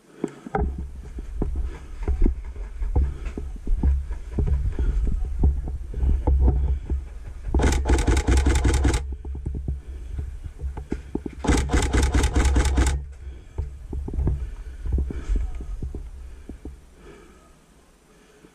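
Two bursts of rapid full-auto airsoft gunfire, each about a second and a half long and about four seconds apart. They sit over a heavy low rumble with scattered knocks that fades out near the end.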